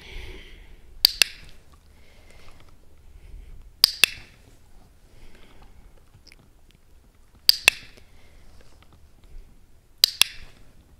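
A handheld dog-training clicker clicked four times, about every three seconds, each a sharp double click as it is pressed and released. It is being paired with food, each click followed by a treat for the puppy.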